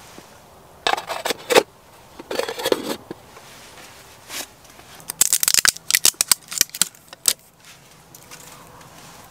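Aluminium mess tin lid set down onto the tin, clanking and rattling against the rim in two short clusters about a second and two and a half seconds in, as the whelks are covered to finish steaming. A single knock follows, then a rapid run of sharp clicks and rattles near the end.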